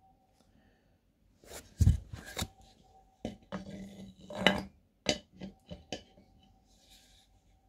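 Parts of a Hill MK4 hand pump being handled during assembly: a string of clinks and knocks of hard parts, the loudest about two seconds in and again near the middle.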